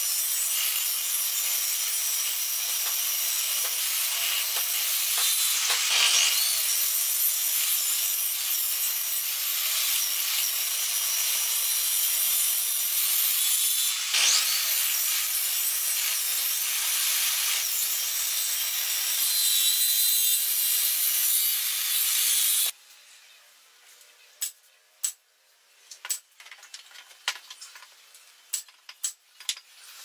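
A small table saw runs and cuts through short lengths of round, bark-covered branch, giving a steady high sawing noise. It cuts off suddenly about three-quarters of the way through. A quieter run of sharp wooden clicks and taps follows.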